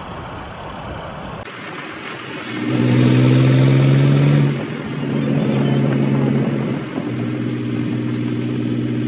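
An engine running at a steady pitch, starting about two and a half seconds in and loudest for the next two seconds, then settling to a steady hum.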